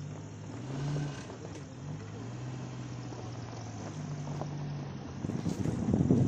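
A safari Gypsy jeep's engine running as it drives along a forest track, its low note stepping up and down slightly. About five seconds in, a louder rough crackling noise comes in over it.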